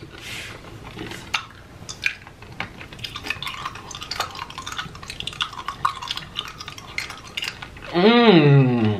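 Close-miked chewing of a flavoured candy cane: a stream of small wet mouth clicks and crunches. Near the end comes a short 'mmm' hum of enjoyment that rises and falls in pitch.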